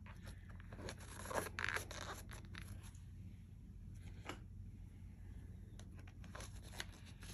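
Faint handling noise of fountain pens being slid into the pen slots of a leather zippered pen case: soft rustling and scraping of leather and plastic, with a few light clicks.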